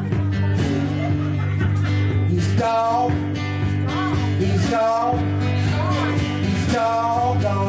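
Live blues-folk music: a steady guitar accompaniment, with a bending, wavering melody line over it from about a third of the way in.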